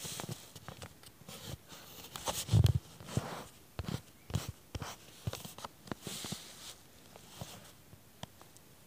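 Close rustling and brushing against the microphone with irregular soft clicks, and a dull thump about two and a half seconds in.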